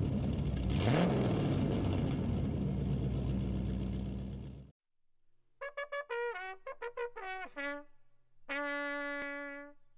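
Intro sound effect: a loud rushing noise with a brief rising tone about a second in, cutting off suddenly just before the halfway point. Then a short musical sting of quick notes that bend in pitch, ending on one long held note.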